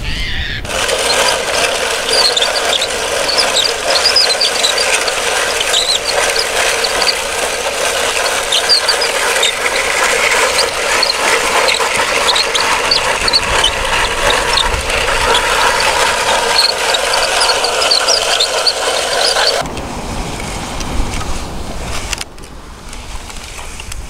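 Steady mechanical whirring with scattered high squeals and no low end. It cuts in about half a second in and stops abruptly about four seconds before the end.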